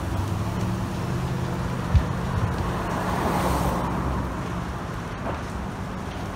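A motor vehicle engine running steadily, with one sharp thump about two seconds in and a swelling rush of noise a little past the middle.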